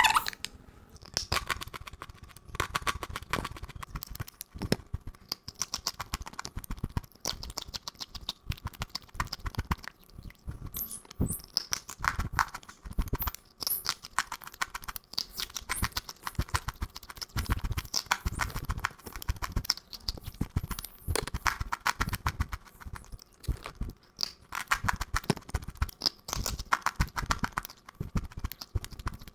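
Rapid crunchy chewing: many sharp crunches in quick, irregular succession, with brief pauses.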